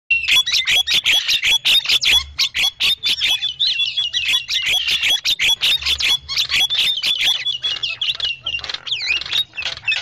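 Javan mynas (jalak kebo) calling noisily: a dense, rapid run of harsh clicks, chatter and short whistled notes with quick up-and-down sweeps, a lure recording meant to draw wild mynas in.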